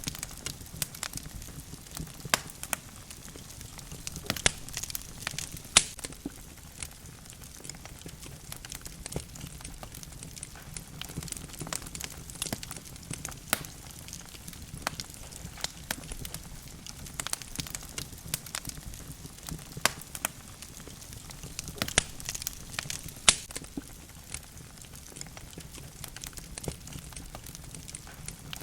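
Wood logs burning in a fireplace, crackling with irregular sharp snaps and pops over a low steady rush of flame; a few pops stand out louder than the rest.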